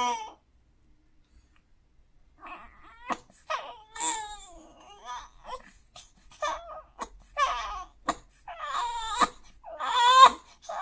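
4-month-old baby whimpering and fussing in his sleep. After a brief pause, a run of short whimpers and half-cries starts about two seconds in and grows louder toward the end.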